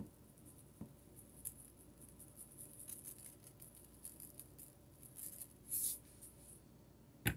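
Quiet kitchen handling noises: faint ticks and rustles, then a brief rattling shake of a seasoning container about five to six seconds in, and a sharp click right at the end.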